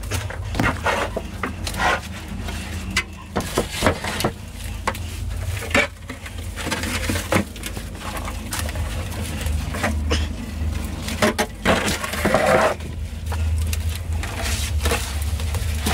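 Broken corrugated cement roofing sheets being grabbed and shifted on a bed of dry leaves: repeated knocks and scrapes with rustling leaves, over a steady low rumble.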